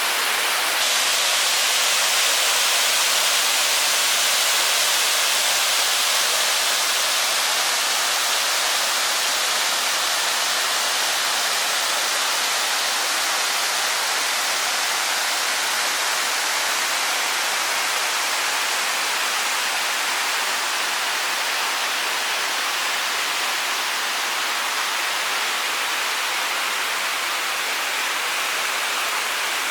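Waterfall rushing: a steady, loud roar of falling water with no breaks.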